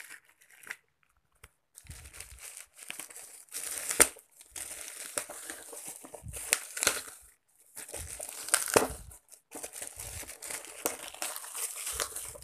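Bubble wrap and plastic packaging being crinkled and torn open by hand, in several bursts with short pauses between and a few sharper crackles.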